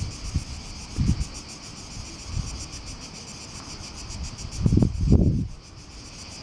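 Steady high insect chorus with a fast, even pulse, while wind buffets the microphone in low rumbling gusts, briefly about a second in and most strongly near the five-second mark.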